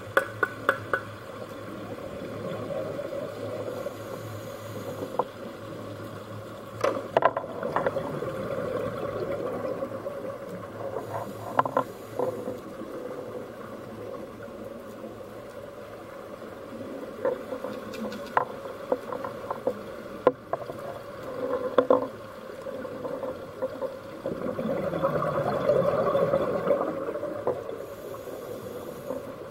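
Muffled underwater noise picked up through an underwater camera, with scattered sharp clicks and a louder rushing swell a few seconds before the end.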